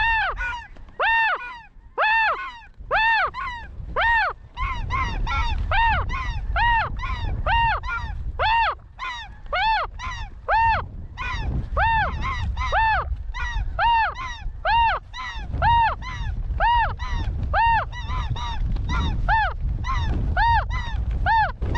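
Goose honking over and over, about one call a second, each call a short pitched note that rises and falls, with wind rumbling underneath.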